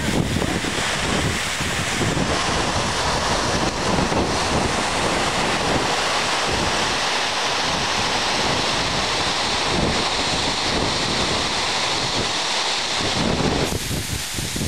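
Steady rush of a tall waterfall close up, falling water and spray, with wind and spray buffeting the microphone in low rumbling gusts.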